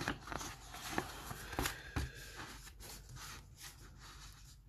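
A sheet of paper shifting and rustling on a desk under a hand, with a few light taps and clicks of a ballpoint pen against the paper and desk.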